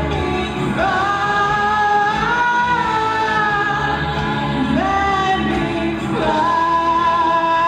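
A woman singing long held notes that slide between pitches, over instrumental backing.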